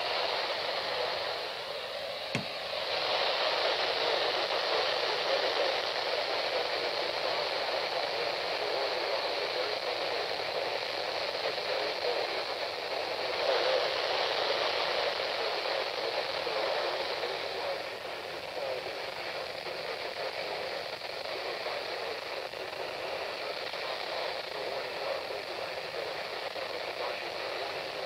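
Static hiss from the speaker of a Radio Shack PRO-70 handheld scanner tuned to a distant NOAA Weather Radio station, the weak signal buried in noise. A single sharp click about two and a half seconds in.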